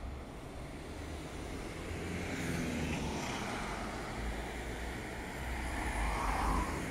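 Road traffic on a city street: cars and a nearby truck passing, a mix of engine rumble and tyre noise that grows louder over the last few seconds.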